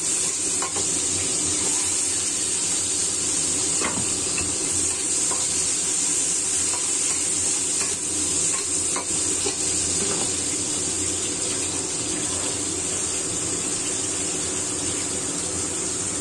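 Shallots, garlic, chilies and tomato sizzling in hot oil in a wok, stirred with a metal spatula. The steady frying hiss carries a few sharp clicks of the spatula against the wok.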